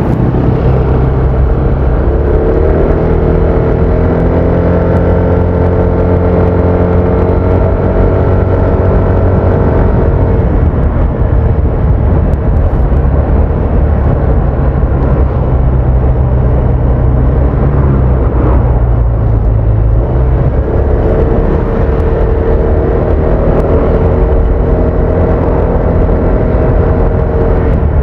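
Honda Vario 160 scooter's single-cylinder engine running under way, rising in pitch as it gathers speed, twice.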